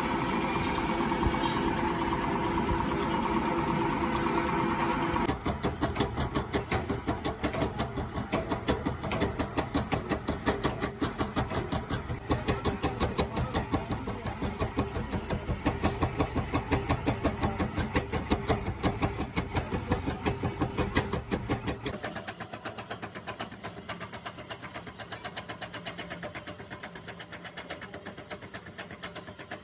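A machine running: a steady hum for about five seconds, then a rapid, even pulsing beat of several strokes a second that continues to the end.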